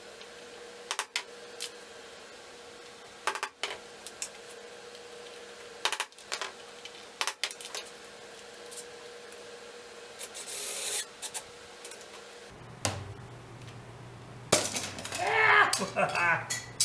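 Metal worm-drive hose clamps being handled on a wooden board: scattered light clicks and clinks, growing into a louder, busier clatter near the end.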